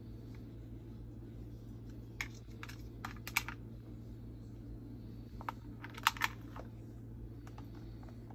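Light, sparse clicks and taps of hard plastic toys handled by a Moluccan cockatoo's beak and feet, in two small clusters: a few a couple of seconds in and a few more about six seconds in. A low steady hum sits underneath.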